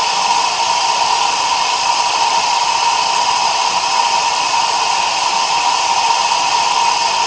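EXAIR 2-inch Super Air Amplifier blowing compressed air with its intake blocked by hand, so it runs on the supply air alone with no entrained air. The sound is a loud, steady rush of air with a steady whistle running through it.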